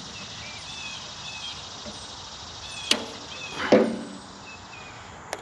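Faint chirping of insects over a steady outdoor hiss, broken by a sharp click about three seconds in, a louder short knock just after, and another click near the end, from hands working the tractor's wiring.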